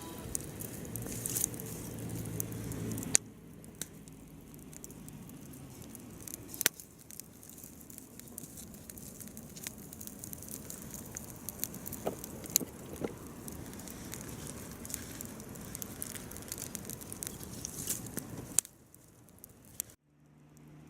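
Wood campfire crackling, with scattered sharp pops and snaps from the burning firewood.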